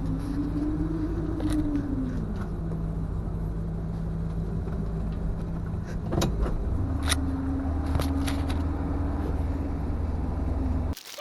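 Car engine running, heard from inside the cabin, a steady low hum with a few faint clicks and knocks; it cuts off suddenly near the end.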